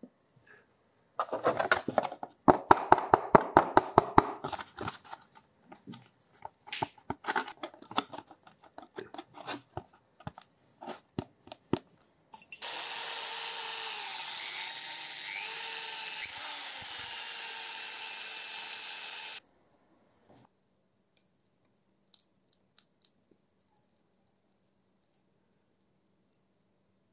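A rapid run of sharp clicks and scrapes, thinning to scattered clicks, then an electric drill running steadily for about seven seconds as a twist bit bores into a steel bolt clamped in a vise, stopping abruptly; a few faint clicks after.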